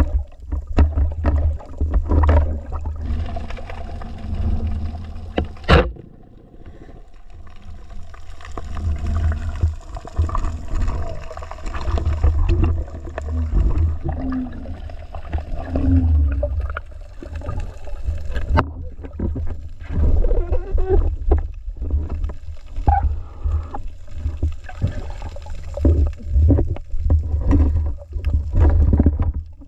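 Underwater water noise picked up by a camera in its housing: a low, pulsing rumble of water moving around the housing, with scattered clicks and knocks. A sharp knock comes about six seconds in, and the rumble drops off for a couple of seconds after it.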